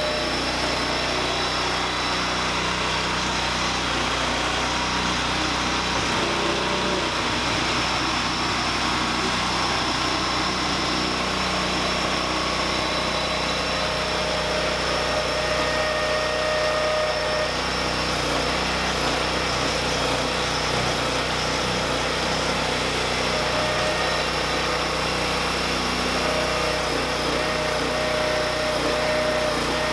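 Converted MTD 990 lawn tractor's engine running steadily, with a thin higher whine that comes and goes in the second half.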